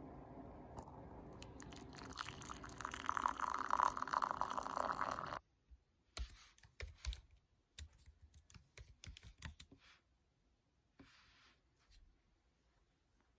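Water poured into a mug over a tea bag, a rushing sound that swells for a few seconds and stops abruptly. It is followed by typing on a laptop keyboard: light key clicks at an uneven pace that thin out near the end.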